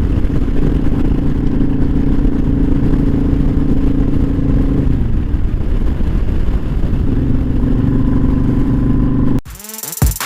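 Kawasaki Vulcan 900's V-twin engine running at a steady cruise in top gear, with wind rumbling on the microphone. It eases off about halfway through and picks up again. Just before the end it cuts suddenly to electronic music with a drum-machine beat.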